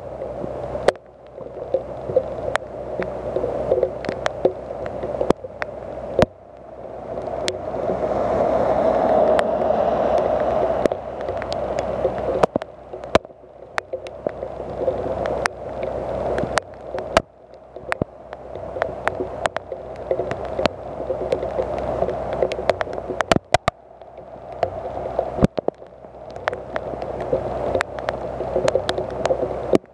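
Rain falling steadily, with drops ticking sharply close by. A car passes on the wet street, its tyre hiss swelling about eight to eleven seconds in.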